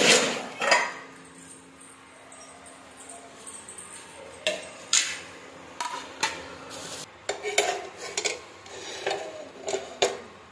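Kitchen dishes being handled: steel plates and pots clattering in a dish rack and a plate set down on a stone counter. A loud clatter at the start, a quieter spell of a few seconds, then scattered clinks and knocks through the second half.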